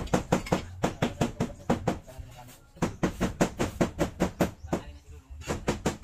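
Rapid, even knocking, about six sharp strokes a second, in runs broken by two short pauses.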